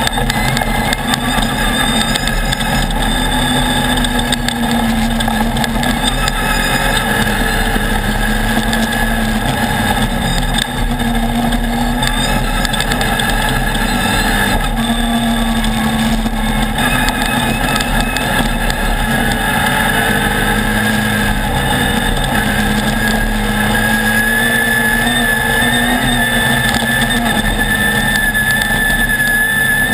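Off-road race buggy's engine running steadily at speed, its pitch wavering slightly, heard from on the buggy as it drives over a dirt trail.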